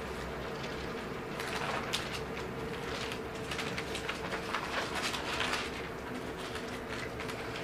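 Bible pages rustling and flicking as a congregation leafs through to find a passage, a scatter of short papery swishes over a faint steady room hum.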